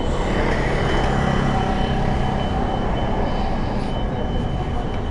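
Motorcycle under way: the engine running steadily beneath heavy wind and road noise, its low note clearest in the first couple of seconds.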